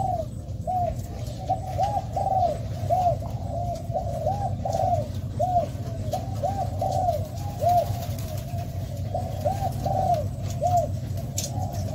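Spotted doves cooing: a steady stream of short, arched coo notes, several birds overlapping, over a steady low hum.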